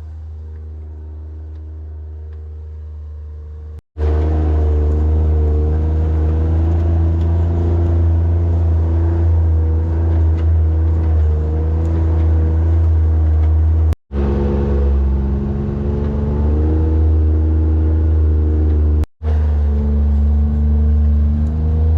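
A vehicle engine running at a steady low speed, quieter for the first few seconds and then louder, its pitch stepping up and down a little. The sound cuts out for an instant three times.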